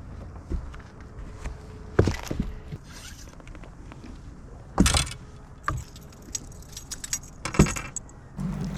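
Metal jangling and several sharp knocks, as of small metal gear being handled. Near the end a low steady hum starts.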